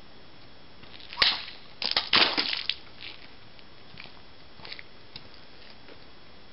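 A katana cutting a plastic water bottle: one sharp swish of the blade through the air and the bottle (tachikaze) about a second in, then a quick clatter and splatter as the severed bottle and its water hit the pavement, and a few small knocks after.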